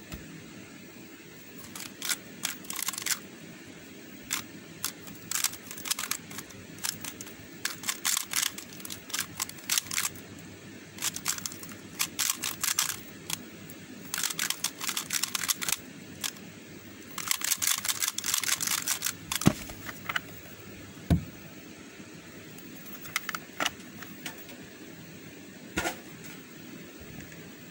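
Square-1 puzzle cube being turned fast in a speedsolve: bursts of sharp plastic clicking and clacking with short pauses between. About two-thirds through the clicking ends with a loud knock as the solve finishes, followed by a few scattered light taps.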